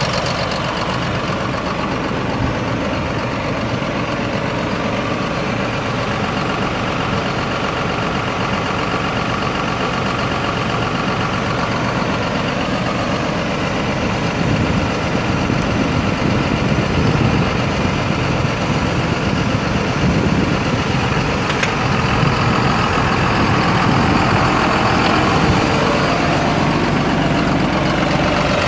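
John Deere 4960 tractor's six-cylinder turbo diesel engine running steadily as the tractor drives about, growing louder about halfway through as it comes close.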